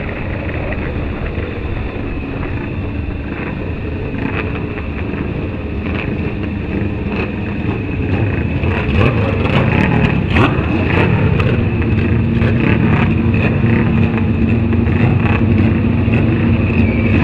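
Vintage racing motorcycle engine running at low speed, heard from a camera mounted on the bike with wind buffeting the microphone. About nine seconds in it gets louder, with rapid ticking over a steady engine note.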